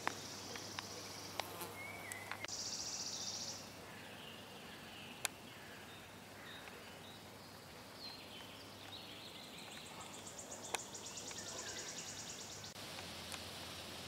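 Forest ambience with small birds chirping and singing in short phrases. A high, rapidly pulsed buzzing trill comes in briefly a couple of seconds in and again for about three seconds near the end. A few sharp clicks stand out.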